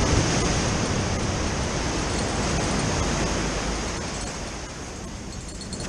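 Ocean waves breaking and washing up the shore, a steady rush that eases off about four seconds in.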